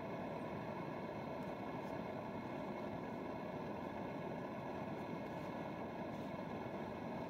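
Portable gas camp stove burning under a pot, a steady, even roar.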